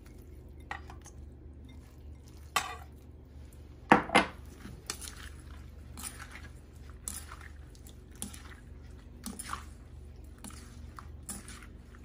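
Salad being mixed by hand and with a spoon: scattered clinks and knocks of the glass and stainless steel bowls and the spoon, with wet squishing of the seafood in its dressing. The loudest knocks come about two and a half and four seconds in.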